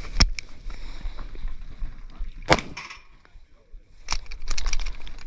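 Airsoft pistol firing during a timed shooting stage: a single shot near the start, another about 2.5 seconds in, then a quick string of several shots from about 4 seconds on.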